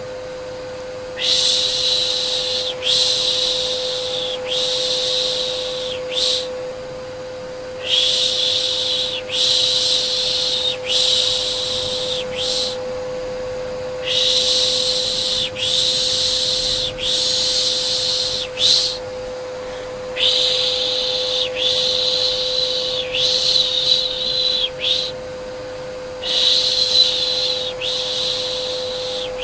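Rhythmic 'shh, shh' shushing, about one hiss a second in runs of four to six with short pauses between runs, over the steady humming whine of a vacuum cleaner motor. This is white-noise shushing used to soothe a baby to sleep.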